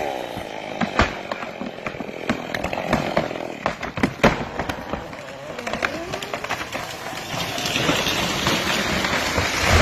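Chainsaw winding down at the start, then a felled tree cracking with a string of sharp irregular snaps as it gives way. A rush of branches builds from about seven seconds in and ends in a heavy thud as the tree hits the ground.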